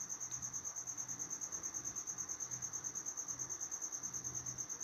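A cricket chirping steadily: a fast, even pulsing of one high note, with a faint low hum beneath.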